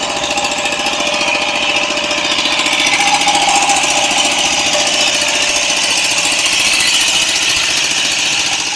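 Fishing boat's inboard engine running steadily and close by, with a rapid even chugging. It cuts off abruptly right at the end.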